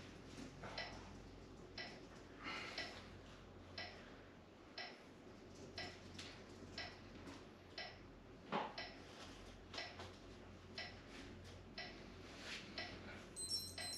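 A clock ticking faintly, about one tick a second, over a low steady hum. One louder rustle comes a little past halfway.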